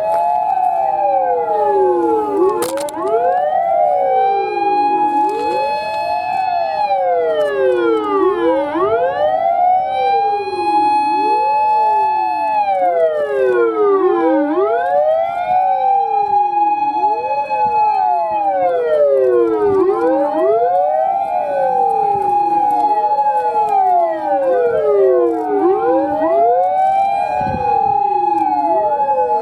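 Sirens of several fire and rescue vehicles in a convoy wailing at once. Each rises, holds its top note and falls, out of step with the others, so the wails overlap continuously.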